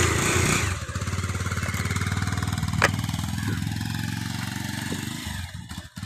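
Bajaj Pulsar 220F motorcycle's single-cylinder engine revved loudly as the bike pulls away, then running at a steady note that fades near the end as it rides off.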